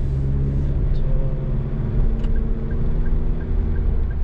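Cabin sound of a moving Toyota Rush: steady engine hum and road noise, with a faint regular tick a little over twice a second.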